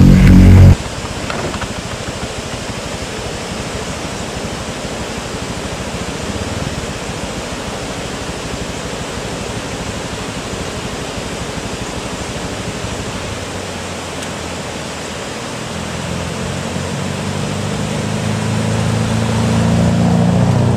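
Steady rushing noise. From about three-quarters of the way through, a vehicle engine approaches and grows louder toward the end.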